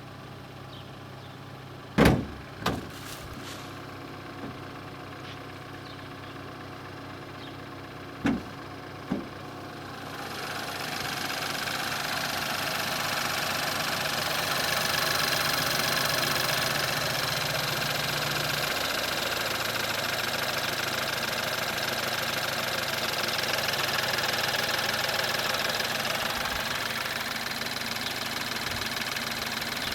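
BMW 320i F30's turbocharged four-cylinder petrol engine idling with a diesel-like clatter, which the owner suspects comes from the timing chain or hydraulic lifters. A few sharp knocks come early on, and about a third of the way in the sound grows louder and hissier.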